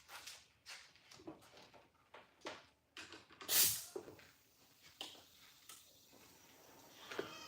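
Shop handling noises: scattered knocks, clinks and scrapes of metal parts and tools being moved, with one louder, brief scrape or swish about three and a half seconds in.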